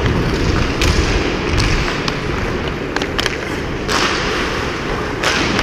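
Ice hockey stick and puck on ice: a string of sharp taps and clacks as the puck is stickhandled, over a steady low rumble.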